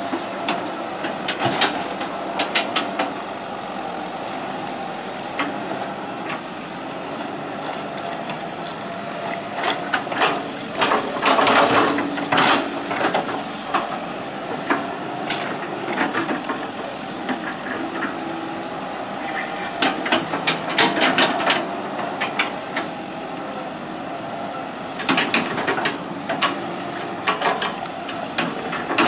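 Hitachi EX120 hydraulic excavator running steadily at work, with several bursts of knocks and clatter from the machine and its bucket working the ground.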